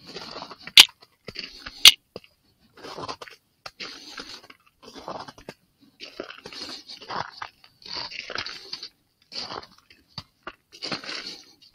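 Slow footsteps crunching on the ground, about one step a second, with two sharp clicks about one and two seconds in.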